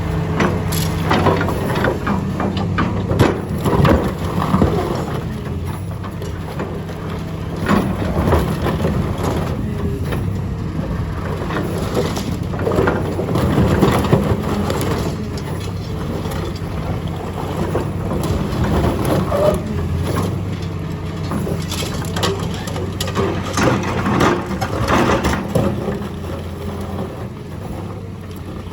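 Excavator engine running steadily under irregular cracks and crunches of concrete being crushed and breaking apart, some strokes sharper and louder than others.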